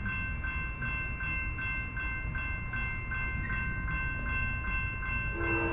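Railroad crossing warning bell ringing, about three strikes a second, over a low rumble from the rail line.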